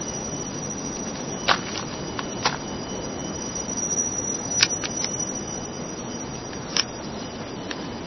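Steady rainforest background hiss, with a few short, sharp clicks or snaps standing out about one and a half, two and a half, four and a half and nearly seven seconds in.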